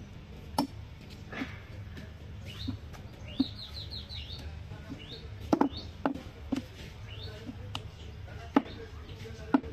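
A heavy cleaver chopping goat meat on a wooden block: about ten sharp knocks, irregularly spaced. A bird chirps a quick run of falling notes about three to four seconds in, with a few more single chirps later.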